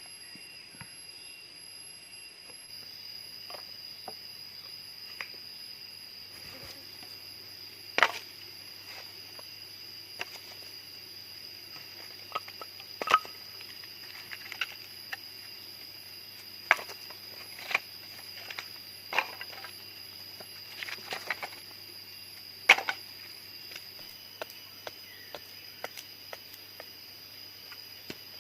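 Irregular sharp knocks and clicks, a few seconds apart, from hands-on work, over a steady high-pitched insect drone.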